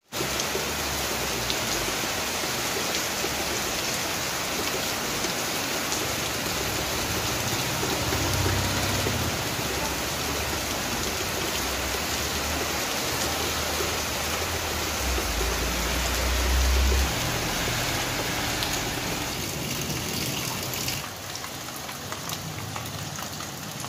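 Steady rain falling on a wet paved surface: an even hiss of drops, with a low rumble twice, loudest a little after the middle. The rain grows quieter near the end.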